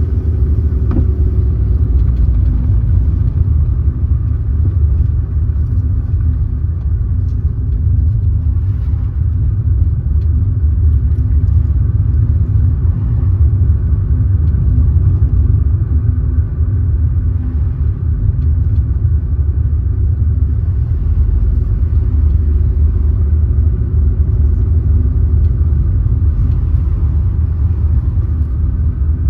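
A car driving at a steady pace: a continuous low rumble of engine and road noise with no sudden events.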